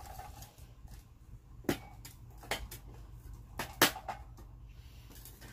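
Camp cookware being handled: four sharp clicks and knocks spread over about two seconds, the last two close together.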